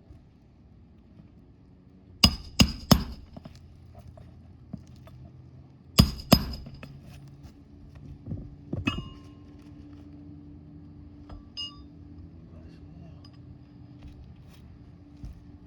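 Hammer blows on metal during a roof shingle repair: three quick sharp strikes, a pause, two more, then two lighter ones, the last ringing briefly. A steady low hum runs underneath.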